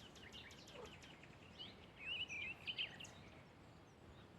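Faint birdsong: a few short, warbling chirps in the middle, over quiet outdoor ambience.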